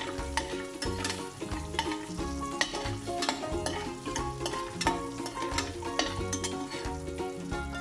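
Cashews frying in hot butter and oil in a stainless steel pan, sizzling as a metal slotted spoon stirs them, with frequent scrapes and clinks of the spoon against the pan. Background music with a steady beat runs underneath.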